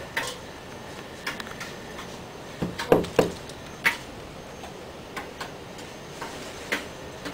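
About ten sharp, irregular clicks and light knocks over a steady low hiss, the loudest pair about three seconds in.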